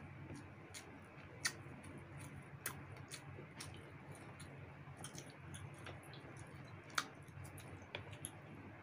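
Close-miked eating sounds of people chewing roast chicken and handling it with their fingers: scattered wet mouth clicks and smacks, a few sharper ones about a second and a half in and near seven seconds, over a faint steady low hum.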